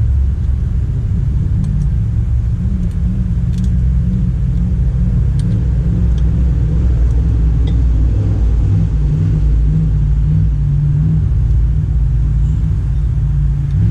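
A steady low engine rumble, with a few faint light clicks over it.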